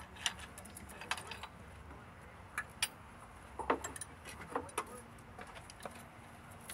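Hoist chain clinking and metal knocking irregularly as an engine hanging from the chain is shifted by hand.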